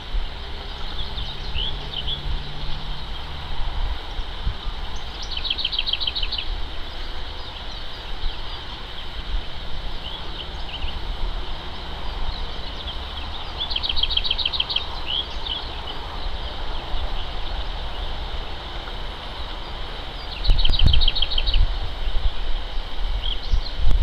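A songbird singing a short, rapid trill of about ten quick notes, repeated three times roughly eight seconds apart, with a few single high notes between. A steady low rumble runs underneath and gets louder about twenty seconds in.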